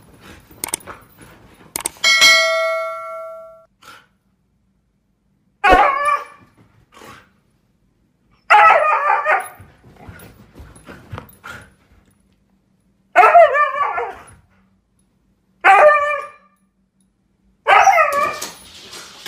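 Husky vocalizing in five separate drawn-out calls that waver in pitch, each lasting about half a second to a second and a half. A single chime rings and fades about two seconds in.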